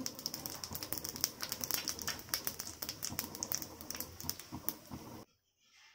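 Whole spice seeds crackling and spitting in hot mustard oil, a rapid, irregular run of small pops. The sound cuts off abruptly near the end.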